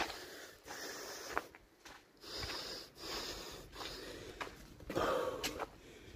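A person breathing in and out close to the microphone in a string of short, noisy breaths, with a few faint clicks between them.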